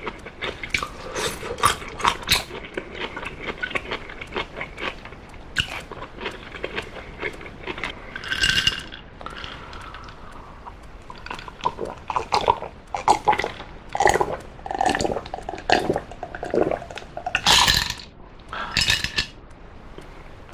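Close-miked mouth sounds: chewing food, then a drink gulped from a glass in a run of swallows, the swallows the loudest part, about midway on.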